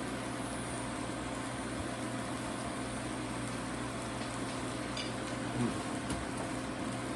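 Marinated meat and mushrooms sizzling steadily in a frying pan, over a faint steady hum. A soft knock about five and a half seconds in.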